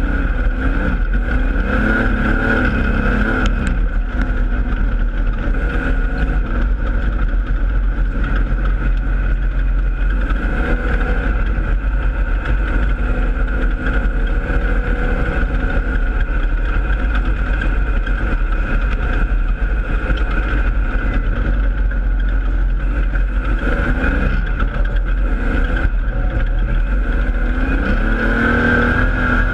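Holden Torana dirt-track race car's engine at racing speed, heard from inside the cockpit: a loud, constant rumble, with the revs rising and falling a few times.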